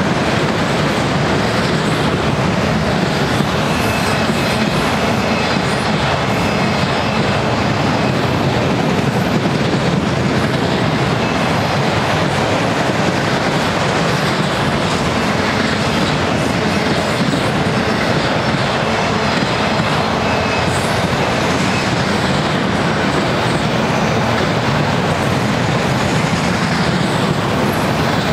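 Train of auto-rack freight cars rolling past on the rails: a steady, loud, continuous rumble and rattle of wheels and car bodies. A faint high wheel squeal comes and goes in the first part.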